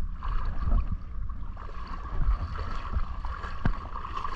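Shallow seawater sloshing and splashing around a person's legs as he wades, with a low rumble of wind on the microphone.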